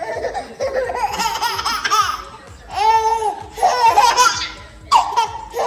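A baby laughing hard in several bursts, with a long high squeal about three seconds in.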